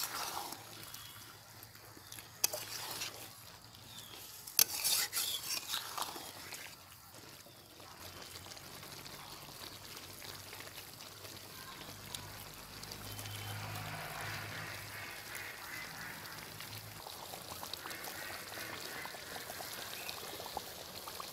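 A spatula scrapes and knocks against a metal kadai several times in the first six seconds while fish curry is stirred. The curry then cooks in the pan with a steady, gentle sizzle.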